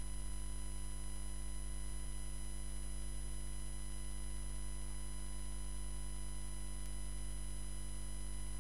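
Steady hum made of several fixed tones, low and high, unchanging, with no knocks or rustles standing out above it.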